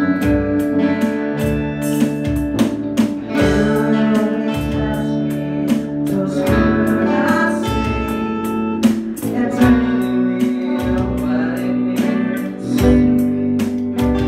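An amateur band playing live: electric guitars over a steady beat, with a singer singing through a microphone.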